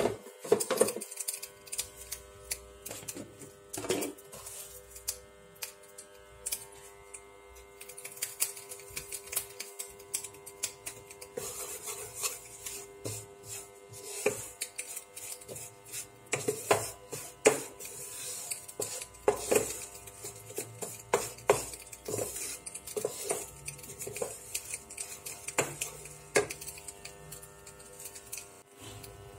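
Wooden spatula scraping and tapping against a frying pan while stirring and toasting almond flour, in irregular clicks and scrapes, over a faint steady tone.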